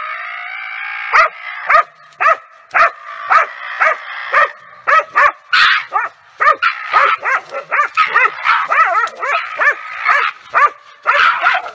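Laika hunting dog barking hard and repeatedly at a small animal it has caught, about two barks a second and getting faster toward the end, after a long whine at the start.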